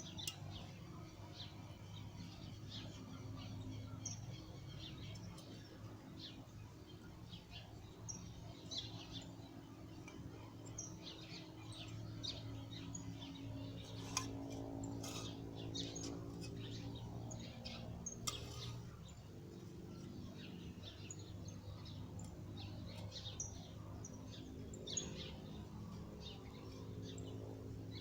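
Small birds chirping on and off throughout, over a steady low hum, with a couple of sharp clicks in the middle.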